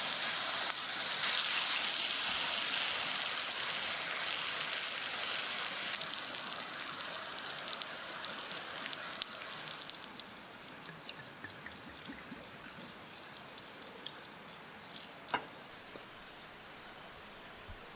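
Pork belly and aged kimchi sizzling loudly on a round camping griddle pan while being stirred. About ten seconds in the sizzle gives way to a much quieter steady hiss with scattered small ticks, and one sharp knock about fifteen seconds in.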